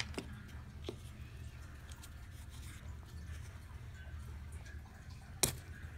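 Small plastic toy train cargo pieces handled and set down on carpet: a few faint taps, then one sharp plastic click about five and a half seconds in, over a low steady hum.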